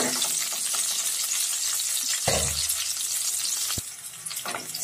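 Sliced onions and cumin seeds sizzling in hot mustard oil in a kadai, stirred with a flat spatula. A dull knock comes a little past two seconds in and a sharp click near four seconds, and the sizzle eases briefly near the end.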